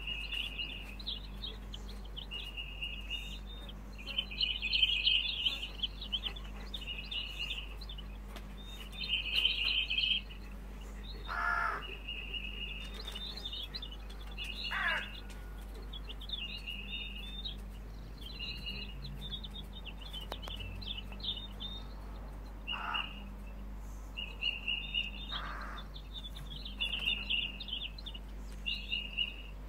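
Birds chirping over and over in short, high bursts, with a few harsher, coarser calls in between.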